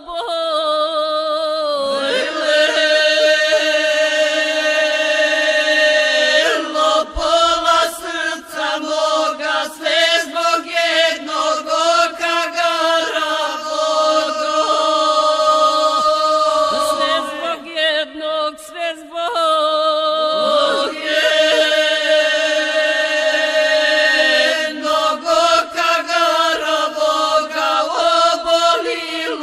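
Women's folk group singing unaccompanied in the traditional village style, in long held notes. The phrases break off briefly about seven seconds in and again for a few seconds in the middle.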